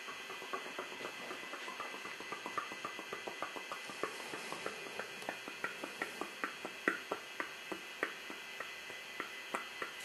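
Model train locomotive clicking steadily as it runs on the layout track, about four or five light, sharp clicks a second over a steady hiss.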